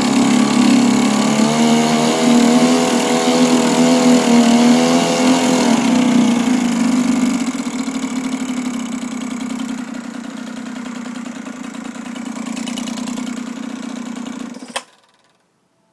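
Sears Gamefisher 1.2 hp two-stroke outboard motor running in a test barrel, its propeller churning the water. It runs at a higher, wavering speed, drops back to a lower, quieter idle about halfway through, and cuts out suddenly with a click near the end.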